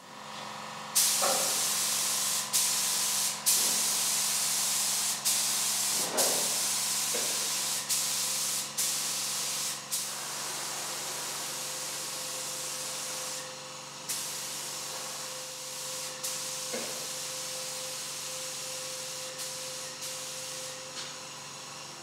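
Gravity-feed compressed-air paint spray gun hissing as it sprays metal paint, in long stretches broken by brief gaps. The spray is louder in the first half and quieter after about ten seconds, with a steady low hum underneath.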